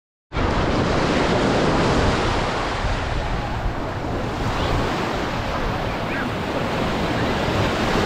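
Small surf breaking and washing up the sand, with wind buffeting the microphone.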